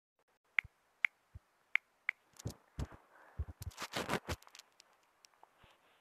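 Four sharp clicks in the first two seconds, then a burst of knocks and rustling, from a phone being tapped and handled.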